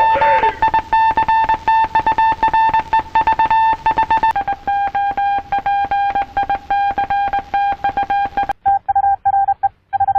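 Morse code beeps of the RKO Radio Pictures radio-tower signal, which spells "A Radio Picture": a single high tone keyed on and off in quick dots and dashes. The tone steps slightly lower about four seconds in, and near the end the beeps stand apart with clean silences between them.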